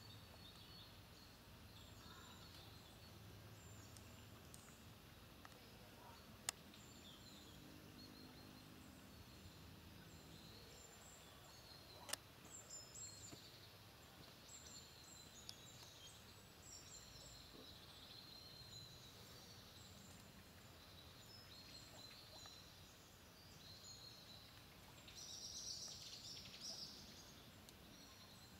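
Faint outdoor ambience with scattered high chirps of small birds calling, busier in the second half with a brief louder flurry near the end, and two sharp clicks.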